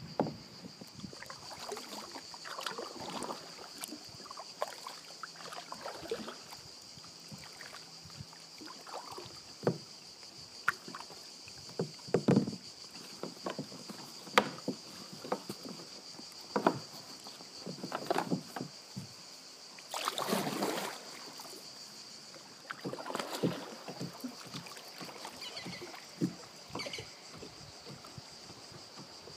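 Canoe paddle strokes in calm river water: irregular splashes, drips and light knocks, with a longer rush of water about two-thirds of the way through, over a steady high-pitched hum.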